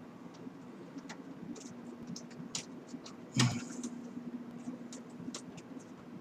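Small clicks and taps of a screw and screwdriver being handled while the graphics card's retaining screw is fitted into the computer case, with one louder knock about three and a half seconds in. A steady low hum runs underneath.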